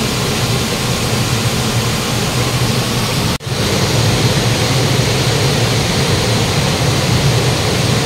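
Steady rush of water from a waterfall and river rapids, breaking off for an instant about three and a half seconds in.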